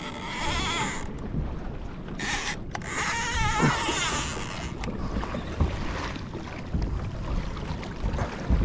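Wind buffeting the microphone and sea water lapping against a kayak on choppy open ocean, with a wavering high whine in the first second and again from about two to four seconds in, and a few low knocks near the end.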